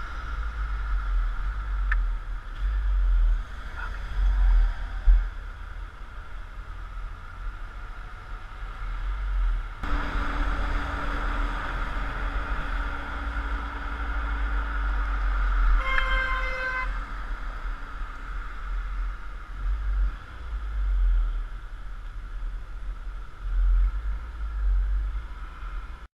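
Motorcycle riding through traffic, heard from a helmet camera: steady wind rumble on the microphone over the running bike. About two-thirds of the way in a horn sounds once for about a second.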